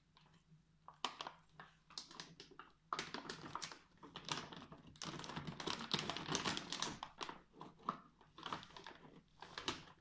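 Crinkling and rustling of a snack packet being handled, broken by irregular clicks and taps; it is busiest in the middle.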